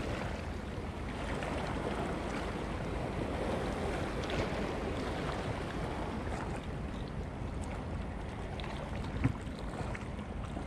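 Wind buffeting the microphone over small waves washing against a rocky shoreline, a steady noise with one light knock about nine seconds in.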